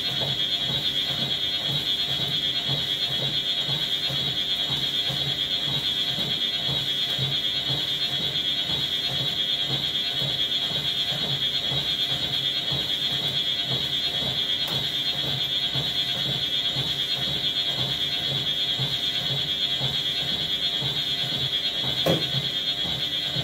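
Treadmill running with a person walking on it: a constant high-pitched whine and a steady motor hum, with footfalls on the belt at an even walking rhythm. A single sharp knock near the end, as a water bottle is picked up from the console.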